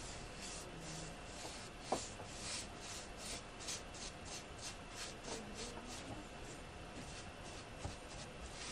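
Paintbrush bristles brushing a wet finish onto a wooden frame in quick repeated strokes, about three a second. A single sharp click about two seconds in.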